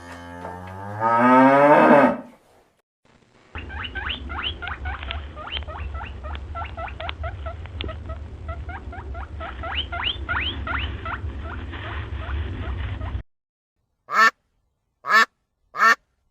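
A cow's moo rising in pitch and ending about two seconds in. After a short pause comes a flock of poultry calling rapidly over a low rumble for about ten seconds, then four short separate calls near the end.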